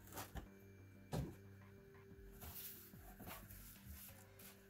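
Cardboard packaging being handled: a few light knocks, the loudest about a second in, and a short rustle, over faint background music.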